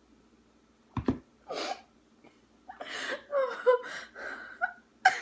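A woman's helpless laughter, mostly breath: after a second of quiet, a sharp outbreath and a puff of air, then a run of breathy laughs with short bits of voice.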